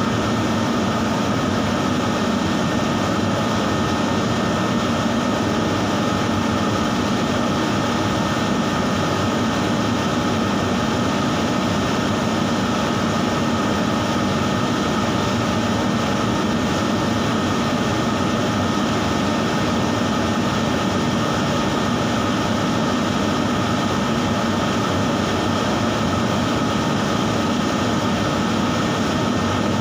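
Spray booth exhaust fan running with a steady, even drone and a few constant hum tones.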